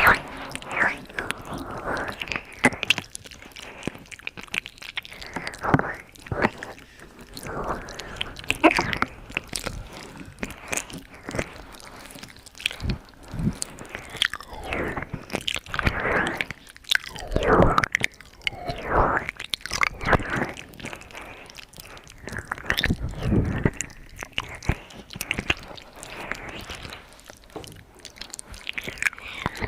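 ASMR mouth sounds close to the microphone: irregular wet clicks, smacks and tongue sounds.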